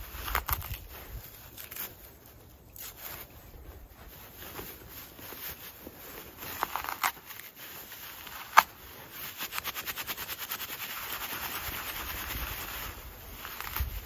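Hands rubbing and working a bundle of dry tinder, a crisp rustling scrape. After a single sharp click about two-thirds of the way through, the rubbing turns quick and even, several strokes a second, until near the end.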